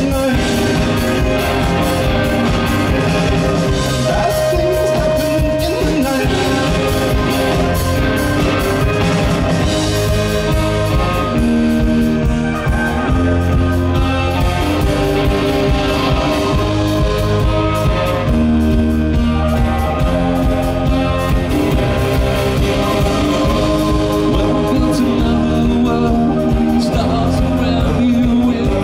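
Indie rock band playing live: a male voice singing over electric keyboard, electric guitar and a drum kit.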